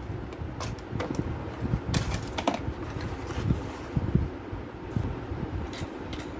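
Scattered small clicks and light knocks of computer parts being handled, with a few sharper clicks about two and a half seconds in and again near the end.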